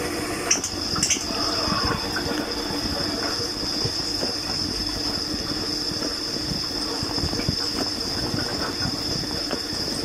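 Dishwasher in its wash cycle: the pump runs and the spray arms throw water against the plates and racks, a steady rattling spatter with a thin high whine over it.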